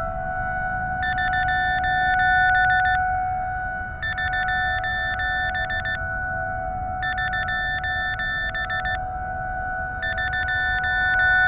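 Outdoor tornado warning siren sounding a steady, slightly wavering tone during a test. Over it, a rapid electronic beeping comes in bursts of about two seconds, repeating roughly every three seconds, with wind rumble underneath.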